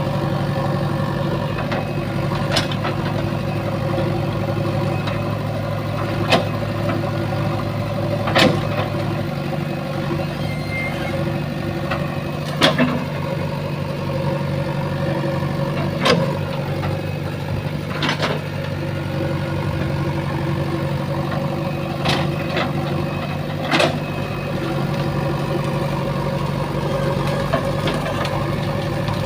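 JCB 3DX backhoe loader's diesel engine running steadily while the machine works soil, with short sharp knocks every few seconds.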